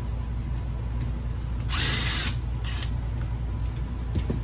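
Small power screwdriver backing out a screw from the CD player's mount: one short run a little under two seconds in, then a shorter second run.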